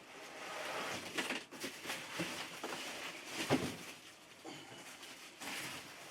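Cardboard box and packing material being handled: irregular rustling and scraping with a few light knocks, the loudest about three and a half seconds in.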